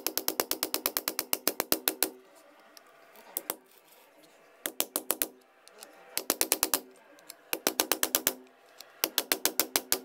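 A knife tapping rapidly on the plastic casing of a Lenovo laptop power adapter, about ten taps a second. A long run of taps comes first, then several shorter runs with pauses between. The adapter is being knocked to provoke an intermittent fault, since it works one moment and stops the next.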